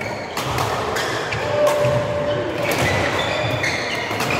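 Doubles badminton rally: several sharp racket strikes on the shuttlecock, with shoes squeaking and footfalls thudding on the court floor, echoing in a large hall.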